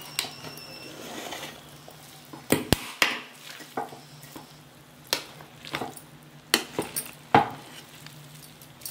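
A ladle scraping and knocking against the side of a metal cooking pot while fluffing and lifting cooked biryani rice, with about ten short scrapes and taps at irregular intervals over a soft rustle of rice.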